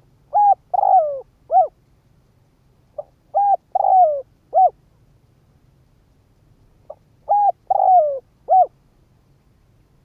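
Spotted dove cooing: three phrases three to four seconds apart, each a soft short note followed by three coos, the middle coo the longest and falling in pitch.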